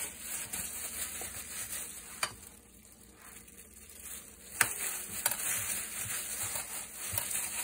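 Disposable plastic food gloves crinkling and rustling as hands rub wet marinade into a cut rotisserie chicken, with a few sharp clicks. It goes quieter for about two seconds in the middle.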